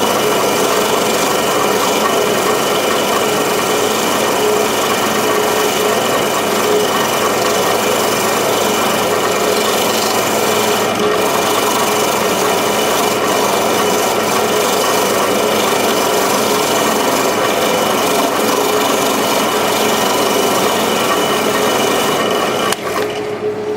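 Small power tool running steadily while it scours rust off a small metal bolt, a continuous abrasive scraping with a steady motor tone under it. It cuts off abruptly about a second before the end.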